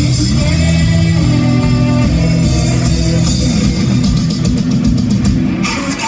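Live rock band playing loud: electric guitar, bass and drum kit, with some singing.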